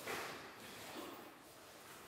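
Mostly quiet room with a faint soft rustle right at the start and a smaller one about a second in, as people shift their bodies on exercise mats.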